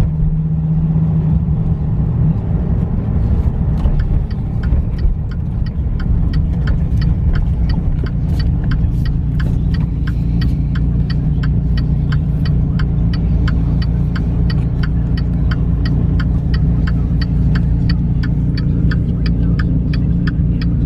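2014 Dodge Viper GTS's 8.4-litre V10 idling steadily with a low rumble, warmed up to operating temperature. A steady light ticking, about two to three ticks a second, starts a couple of seconds in and runs on over it.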